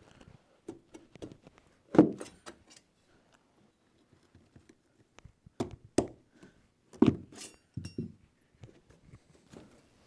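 A flat bar prying a metal carpet trim strip up off its nails: a string of sharp metallic clicks, clinks and thunks, the loudest about two seconds in, with more around six and seven seconds.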